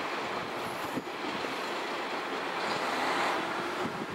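Kashima Rinkai Railway 6000-series single-car diesel railcar pulling away, its engine and wheels on the rails receding, with a slight swell about three seconds in.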